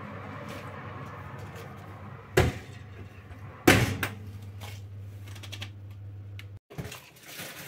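Kenwood oven door being swung shut: a knock about two and a half seconds in, then a louder bang as the door closes a second later, followed by a steady low hum.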